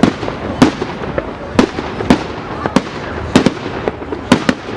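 Fireworks going off: a quick, irregular series of sharp bangs, about two a second and some in close pairs, over a steady background of crackle and noise.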